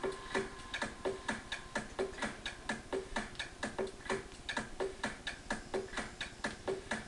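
Electronic dance music with a quick ticking beat, about four ticks a second, each tick carrying a short pitched note.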